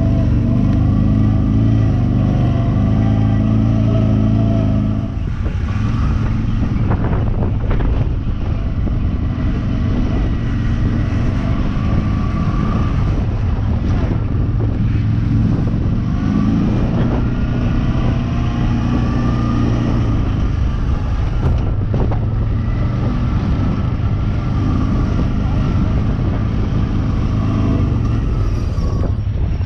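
ATV engine running as it is ridden over gravel, its pitch rising and falling with the throttle.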